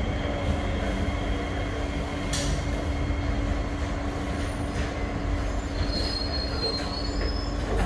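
Interior of an SMRT C151B MRT train running on the rails: steady rumble with a constant hum, and a sharp click about two seconds in. Wheels squeal briefly in a thin high tone near the end.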